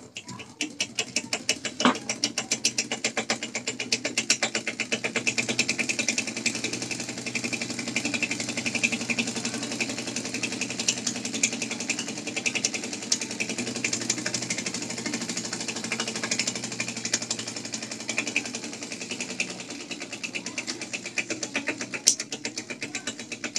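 Homemade compressed-air piston engine running fast: a rapid, even stream of clicking puffs as each stroke exhausts air, gathering speed over the first couple of seconds and then holding steady, with one sharper click near the end.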